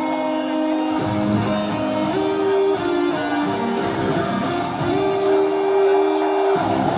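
Metalcore band playing live: distorted electric guitars holding and changing sustained notes over a dense, loud full-band sound.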